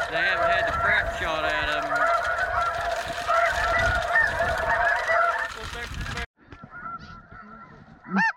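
A dense chorus of snow goose calls, many birds honking over one another. About six seconds in it cuts off abruptly to fainter calling, and just before the end loud, evenly repeated honks begin.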